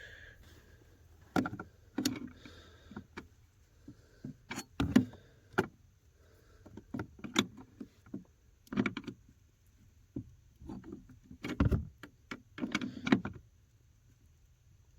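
Irregular clicks, knocks and rattles of hand work under a dashboard as the brake light switch's lock nut is snugged up, with a few sharper knocks among them.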